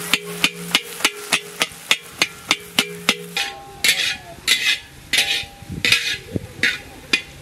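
A metal spatula tapping and chopping scrambled eggs against a large metal kadai, sharp and regular at about three taps a second. A few seconds in this gives way to slower scraping strokes of a ladle stirring around the pan.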